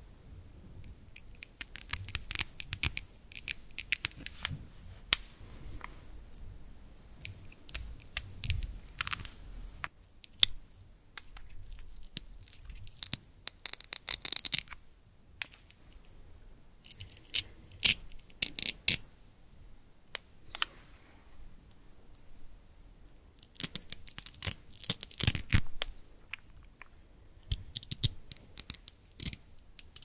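Hook-and-loop Velcro on wooden toy fruit and vegetable halves being torn apart by hand, in a series of crisp rasping rips with short pauses between.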